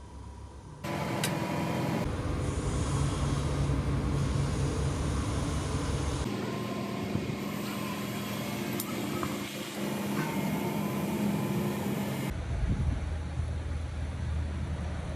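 A machine running steadily, with a low steady hum and its overtones. The sound changes abruptly about a second in, again around the middle, and again near the end.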